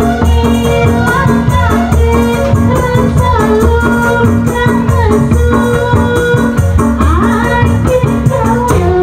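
A woman singing into a microphone over loud amplified music, with a fast, even rattling rhythm running through it.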